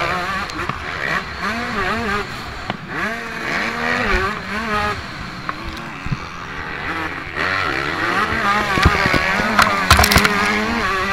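Motocross bike engine heard from on the bike, its pitch rising and falling over and over as the throttle is opened and closed through the turns. A few sharp knocks come near the end.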